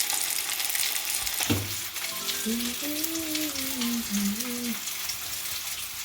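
A pot of tomato pepper soup cooking on the stove, sizzling steadily.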